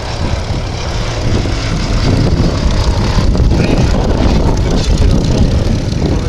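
Hawker Demon's Rolls-Royce Kestrel V12 piston engine running steadily, a loud low throb with a fast pulsing beat.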